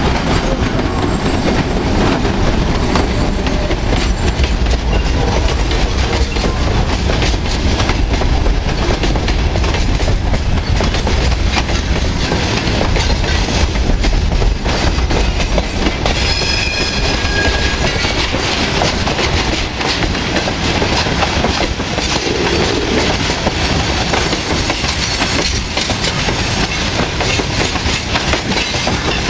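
A loaded freight train of open wagons rolls past close by, its wheels clattering over the rail joints with a steady low rumble. About halfway through there is a brief high squeal.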